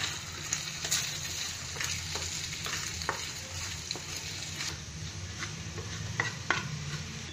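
Eggs sizzling in hot oil in a frying pan while a wooden spatula breaks them up and stirs them into scrambled egg, scraping across the pan with a few short knocks.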